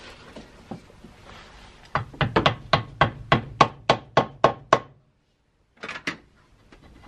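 A small hammer knocking a turned white oak plug down into the hole of a cast-iron drill press table. About a dozen quick, sharp knocks come at roughly four a second, driving in a tight fit against the rough casting. After a short pause, two lighter knocks follow.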